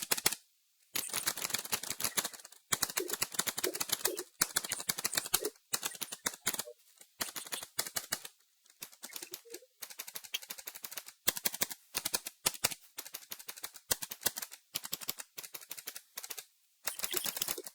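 Typing on a Redragon Kumara K552 mechanical keyboard with clicky blue switches, rapid key clicks coming in bursts with short pauses between them.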